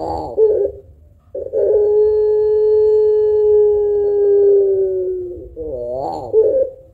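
Puter pelung dove cooing. The warbling end of one call is followed, about a second and a half in, by a long, steady low coo held for about four seconds, which breaks into a wavering, warbling ending near the end.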